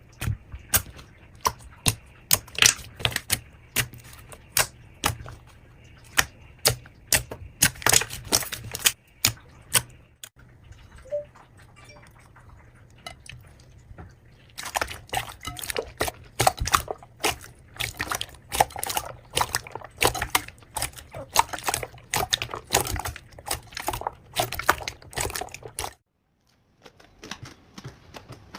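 Slime being pressed and squeezed by hand, making sharp wet pops and clicks several times a second, with a quieter stretch of softer squishing about ten seconds in.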